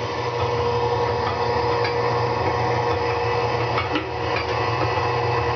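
Hobart 4246 mixer grinder running in mix mode: its 1-hp mix motor and gearbox turn the paddle with a steady hum, and a few light clicks come through.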